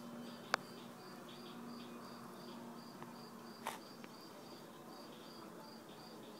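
Crickets chirping in a fast, even pulse, about four to five chirps a second, over a faint low steady hum. Two sharp clicks cut through, one about half a second in and another about three seconds later.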